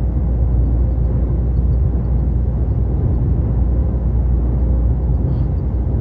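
Heavy truck's engine and tyre noise heard from inside the cab while driving at motorway speed: a steady low rumble.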